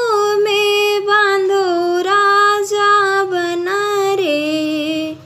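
A woman singing a Bundeli tilak wedding song (vivah geet) solo, with no instruments heard. She holds long, drawn-out notes on one line of the song, and the voice stops just before the end.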